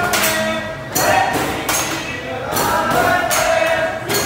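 A group of voices singing together over a sharp, steady beat that falls a little more than once a second.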